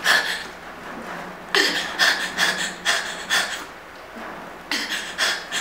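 A woman's loud, gasping breaths, coming in clusters of sharp breathy bursts about half a second apart, with short pauses between clusters.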